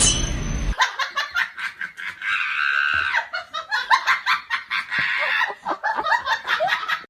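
A person laughing hard in rapid, choppy bursts, starting about a second in, just after a few lingering moments of music cut off.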